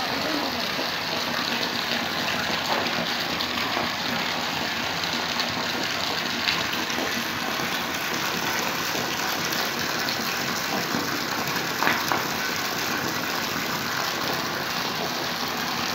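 Water gushing and spattering steadily onto the surface of a stocked fish tank, with a couple of sharper splashes about six and twelve seconds in.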